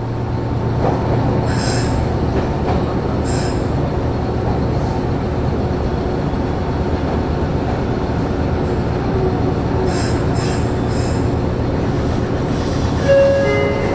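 Meitetsu electric train rolling slowly and braking to a stop, heard from just behind the driver's cab: steady running rumble and hum with brief high squeaks from the wheels. A few short electronic tones sound near the end, once it has stopped.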